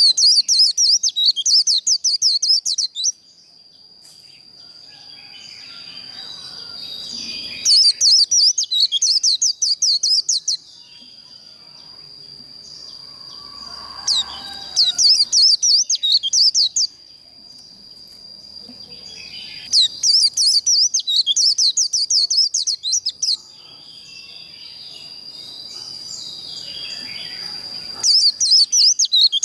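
White-eye (vành khuyên) singing its fast, trilling 'líu' fighting song in five bursts of about three seconds each. Quieter chirping fills the gaps, over a steady high tone.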